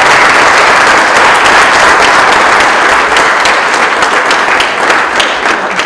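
Audience applause, dense clapping that dies down near the end.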